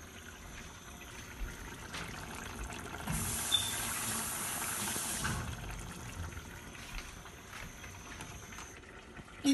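Fish curry in a clay pot on a gas burner, with a liquid hiss that swells louder for about two seconds near the middle.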